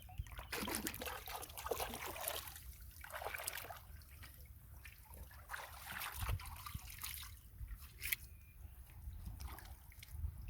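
Water trickling and splashing, with irregular small splashes and drips coming and going.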